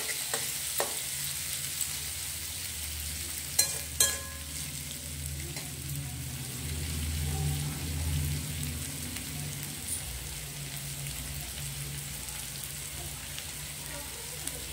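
Chopped onions and garlic sizzling steadily in hot oil in a kadai, frying on their way to golden. A metal spatula scrapes and knocks against the pan a few times in the first four seconds, loudest about four seconds in, over a low steady hum.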